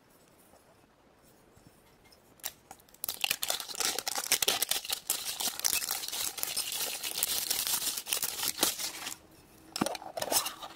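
Packaging of a toy surprise pack being torn open and crinkled by hand: a dense crackling rustle that starts about three seconds in, lasts about six seconds, then ends in a few scattered clicks.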